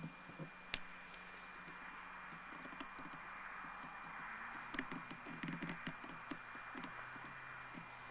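Faint, steady drone of a distant Pegasus Cyclone AX2000 microlight's engine and propeller, its pitch sliding slightly lower about halfway through. Scattered small clicks and rustles from camera handling and wind on the microphone sit over it.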